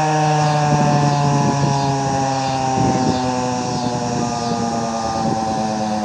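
Federal Signal 2001-SRNB electromechanical siren winding down after being switched off: its tone falls slowly and steadily while it fades.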